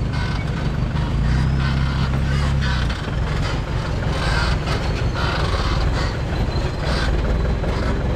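Mahindra Thar CRDe's diesel engine running low and heavy as the jeep crawls over boulders in a dry riverbed, louder for a couple of seconds about a second in. Rocks knock and crunch under the tyres from about the middle on.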